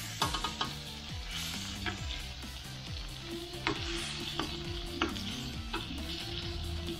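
Butter melting and sizzling in a metal wok while a metal spoon stirs and scrapes it, clinking against the pan several times.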